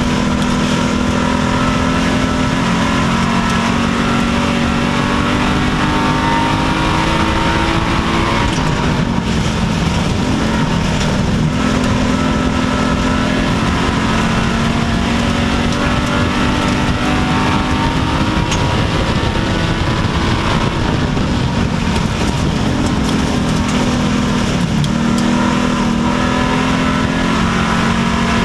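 Wissota Street Stock race car's V8 engine at racing speed, heard from inside the cockpit. Its pitch falls twice, about eight seconds in and again about twenty-four seconds in, as the driver eases off for the turns, then climbs again on the straights.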